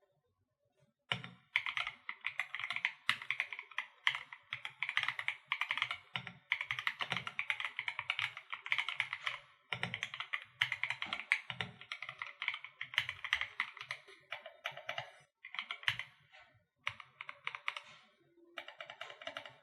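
Fast typing on an Akko PC98B Plus mechanical keyboard, a dense stream of keystroke clicks starting about a second in. In the last few seconds it breaks into shorter bursts with brief pauses.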